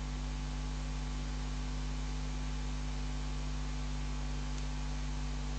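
Steady electrical mains hum with a faint, even hiss in the live commentary's audio line, with no other sound over it.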